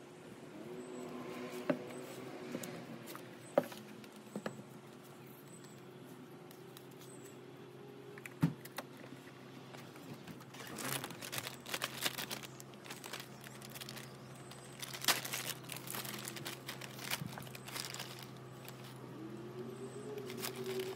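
Hands working potting soil and handling petunia plants in a container: soft rustling and crinkling with a few sharp clicks, denser in stretches in the second half.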